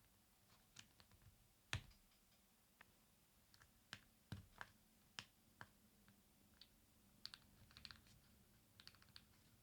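Scattered faint plastic clicks and taps from handling a NuPhy Air75 V3 low-profile keyboard while its knob is fitted, with a sharper knock about two seconds in and small clusters of clicks later.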